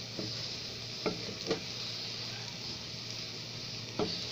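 Wooden spoon stirring rice and vegetables in a hot pot, with a steady sizzle and a few sharp knocks of the spoon against the pot.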